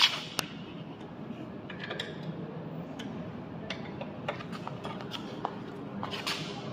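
Irregular sharp clicks and light knocks of parts and tools being handled during treadmill repair work, over a steady low hum. The loudest click comes right at the start.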